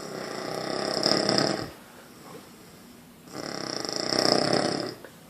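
Snoring: two long snores a couple of seconds apart, each swelling louder before it breaks off.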